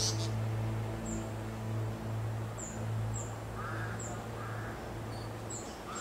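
Paradise flycatcher giving short, harsh, rasping calls, about three in the second half, with faint short high chirps between them.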